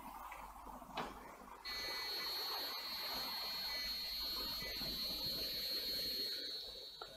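A sharp click about a second in, then a steady high-pitched electronic whine that starts suddenly and holds at one pitch.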